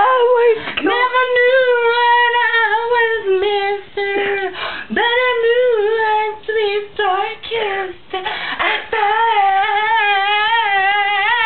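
A young woman singing solo, wordless held notes and runs with a wavering vibrato, broken by short breaths about four and eight seconds in.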